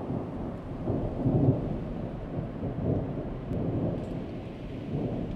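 A low rolling rumble like thunder, with a light rain-like hiss. It swells to its loudest about a second and a half in, then slowly eases off.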